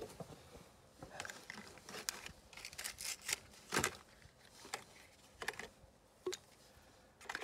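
Scattered light clicks, knocks and scrapes of tools and parts being handled, with the loudest knock about four seconds in.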